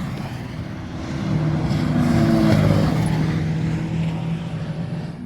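A sports car passing at speed on a race track. Its engine note builds to its loudest about three seconds in, then fades as it drives away, the pitch dropping slightly as it goes by.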